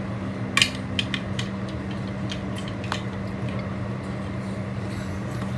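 Light clicks and knocks of a silicone cakesicle mould being handled over a tray as a chocolate-coated cakesicle is pushed free, the sharpest about half a second in, over a steady low hum.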